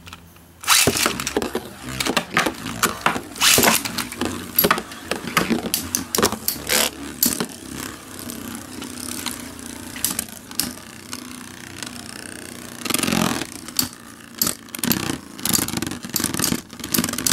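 Two metal-wheeled Beyblade spinning tops, L-Drago Destroy and L-Drago Destructor, land in a clear plastic Beyblade stadium about a second in. They then spin, scrape and clash against each other with many sharp metal hits until the battle ends.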